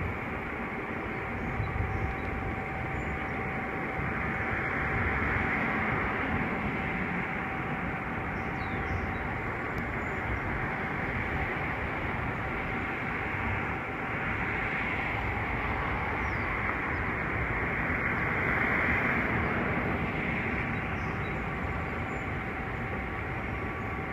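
Water rushing and churning from the open sluice gates of a lock, a steady roar with a faint constant hum, swelling louder twice.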